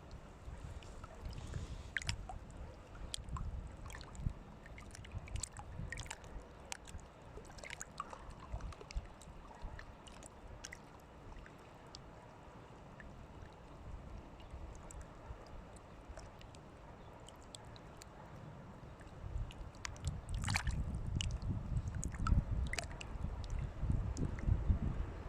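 Water sloshing and gurgling, with scattered small splashes and clicks over a low rumble. It gets louder near the end.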